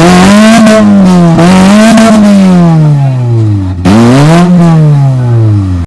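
Engine-like revving, very loud, its pitch rising and falling about four times in slow swells and cutting off abruptly near the end.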